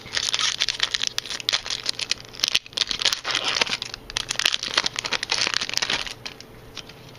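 Foil booster pack wrapper being torn open and crinkled, a dense crackling that stops about six seconds in.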